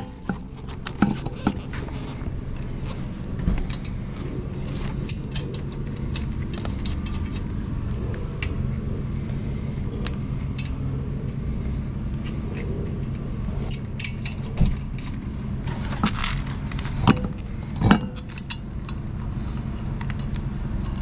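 Metal tools and lug nuts clinking and scraping during a tire change onto a spare, over a steady low hum, with a few louder knocks near the end.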